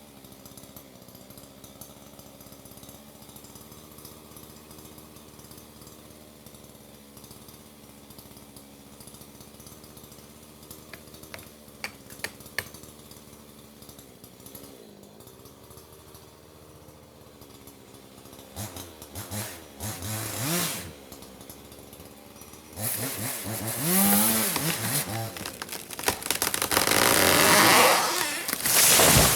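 A chainsaw engine idles steadily, then about two-thirds of the way in is revved up and down and cuts, growing much louder near the end.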